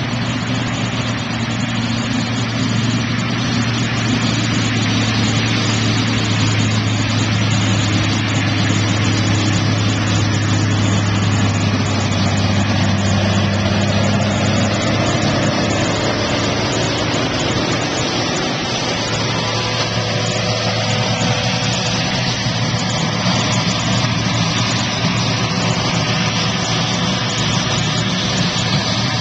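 RoGator 1286C self-propelled fertilizer applicator with an air-flow boom driving past while spreading urea: its diesel engine running as a steady hum over a rushing hiss, loudest as it passes close and dropping off in the last third as it pulls away.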